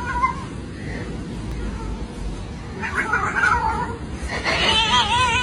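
A cat yowling in drawn-out cries with a wobbling pitch: a short one at the start, another about three seconds in, and a longer, louder one near the end.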